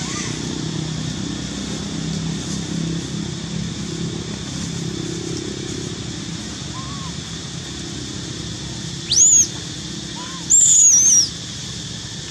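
Infant long-tailed macaque crying with two loud, high-pitched squeals near the end: a short rising one, then a longer wavering one that falls away.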